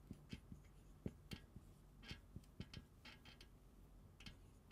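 Marker pen writing on a whiteboard: faint, irregular taps and short squeaky strokes as a chemical formula is written.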